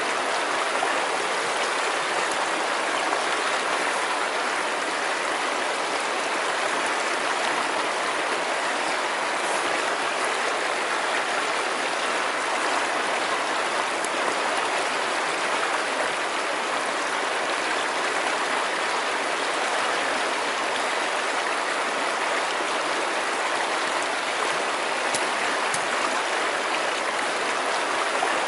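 Steady, even rush of a river's flowing water.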